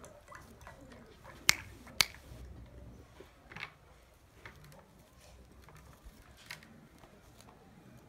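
A pigeon pecking at a concrete floor: a few sharp taps, the two loudest about half a second apart early on, then fainter, scattered ones.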